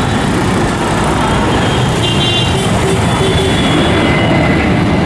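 Loud, steady engine rumble with a faint high whine that comes and goes.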